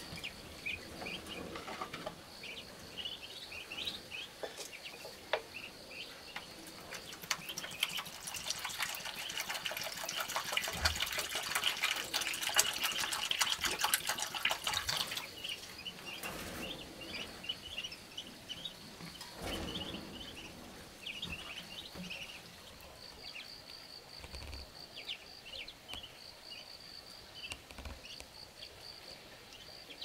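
Newly hatched ducklings peeping in many short, high chirps, with water poured from a plastic bottle, splashing for several seconds around the middle.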